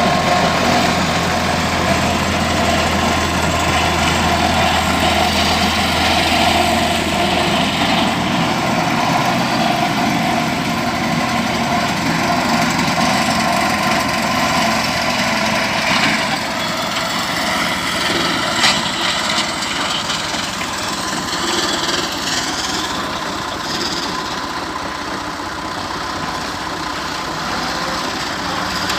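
Engine of a grass-mowing machine running steadily at idle, with a deep hum that drops away about a quarter of the way in and a single sharp click about two-thirds through.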